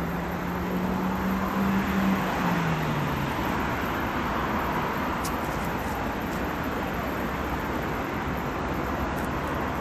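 Steady city road traffic noise. A low vehicle hum in it drops in pitch about two and a half seconds in as the vehicle passes, then fades.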